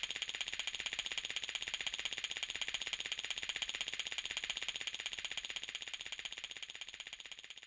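Cartoon sound effect: a fast, even rattling ring at about nine strokes a second, fading away over the last two seconds.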